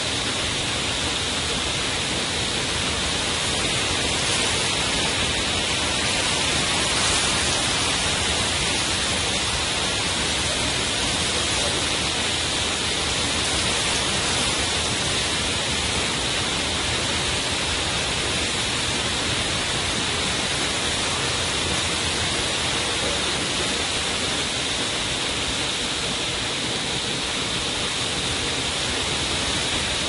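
Waterfall pouring over a rock ledge into a shallow pool: a steady, even hiss of falling water.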